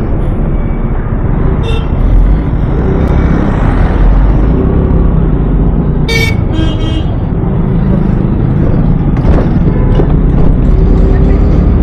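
Steady road and riding noise on a scooter ride, a loud low rumble, with short vehicle horn toots about two seconds in and a louder pair around six to seven seconds in.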